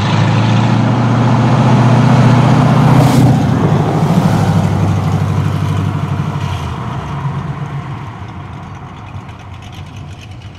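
1979 Chevrolet Camaro's 6.6-litre small-block V8 exhaust as the car drives past. It is loudest about three seconds in, then fades steadily as the car pulls away.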